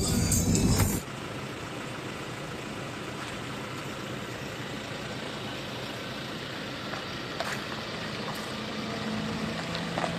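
Background music for about the first second, then a steady outdoor vehicle background. Near the end a low engine hum builds as an open-sided tourist tram drives past.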